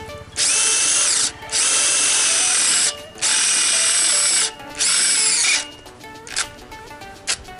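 48VF Nanwei brushless cordless drill boring a 10 mm bit into thin steel pipe: the motor whines at speed while the bit grinds the metal. It goes in four runs of about a second each, broken by short pauses, and stops a little over five seconds in.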